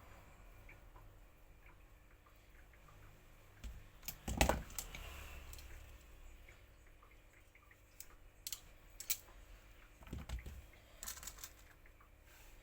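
Scattered clicks and knocks of parts and hand tools being handled during repair work, the loudest a thump about four seconds in.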